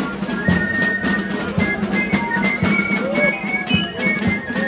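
Street band of shawm-type reed pipes and drums playing a lively traditional tune. A high, reedy held-note melody runs over drum strokes about twice a second.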